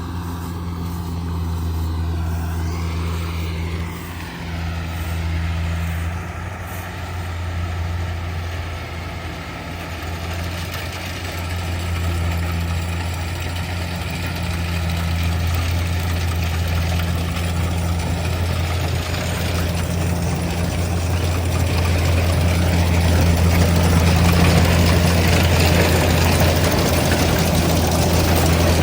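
Kubota DC70G Plus combine harvester running steadily, a low diesel engine hum under a broad mechanical rush that grows louder after about twenty seconds.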